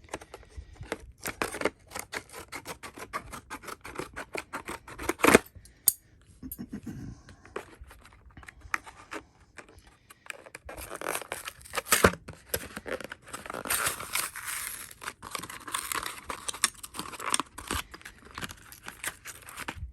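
Retail packaging of a tool set being opened by hand: irregular scratchy rustling and scraping with many small clicks, and a couple of sharper knocks, about five and twelve seconds in.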